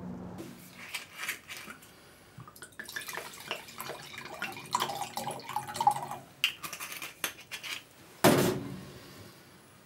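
Glass and bottle clinking on a stainless-steel kitchen counter, and wine glugging as it is poured into a glass, with one loud knock just after eight seconds in.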